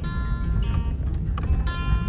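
Background music: strummed acoustic guitar chords, over a steady low rumble.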